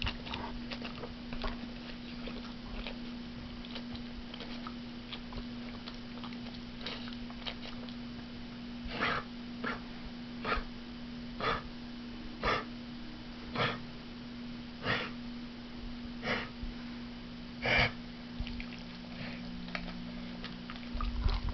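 A pet coughing and hacking in a series of about nine short, noisy breaths roughly a second apart, spacing out toward the end, over a steady low hum.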